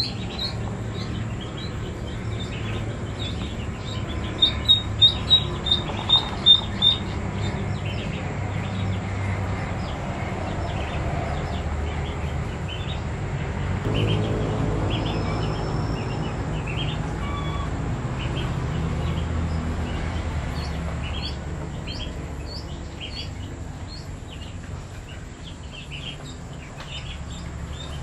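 Ducklings peeping in short, high chirps again and again, with a louder run of peeps about four to seven seconds in, over a steady low hum.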